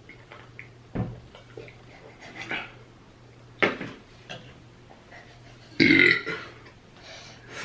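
A woman burping several times in short separate bursts, the loudest and longest about six seconds in.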